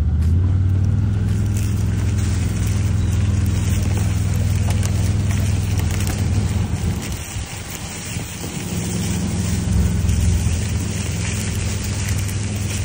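Side-by-side UTV engine running steadily under way, with ride noise over it; the engine eases off around seven seconds in, then picks back up.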